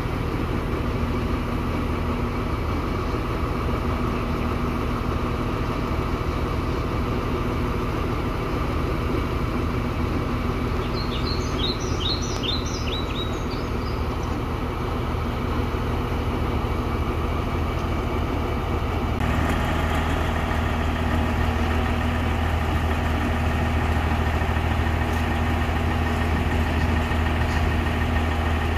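Diesel engines of Sri Lanka Railways Class S9 and S10 power cars idling with a steady hum. The note shifts abruptly and gets a little louder about 19 seconds in, and a brief run of short high chirps sounds near the middle.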